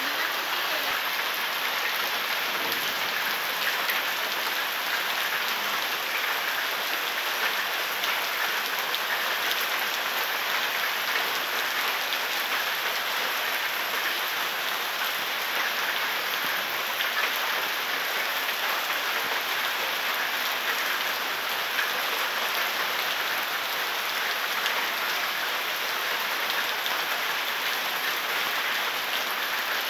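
Heavy tropical downpour pouring onto wet concrete paving, a steady, even hiss of rain splashing on the surface.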